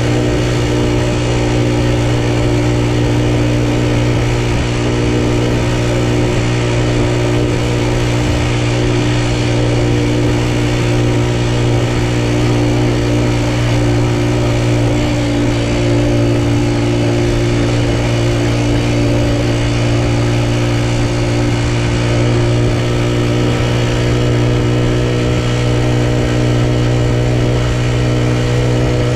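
Honda Super Cub's single-cylinder four-stroke engine running at a steady pitch while riding, an engine the owner says makes an abnormal noise.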